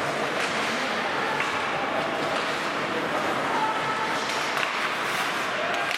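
Ice hockey in play in an arena: a steady scraping of skates on the ice, with occasional sharp clacks of sticks and puck and voices calling across the rink.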